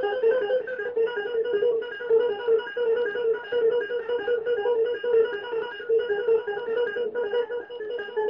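Guitar strings damped with a sock, drummed on with the fingers: a fast, steady run of short, buzzy notes that flick back and forth between two close pitches.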